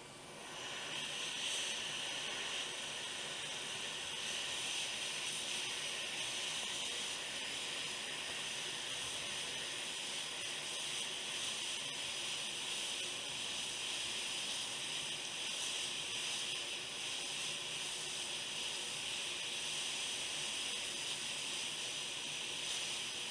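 Hot air rework station blowing a steady hiss of hot air to reflow a chip on a circuit board. The airflow builds up over the first second, then holds even.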